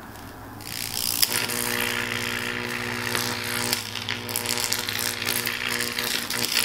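High-voltage arc buzzing and crackling as it jumps through the cracks in a Nexus 7 tablet's glass screen, starting about half a second in with a steady electrical hum under the crackle.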